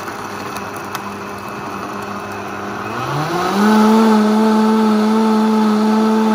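Countertop blender motor running on a thick shake of ice and frozen banana; about three seconds in its pitch rises and it runs louder and steady. The frozen banana has jammed and is not getting chopped, so the loud chopping sound is missing.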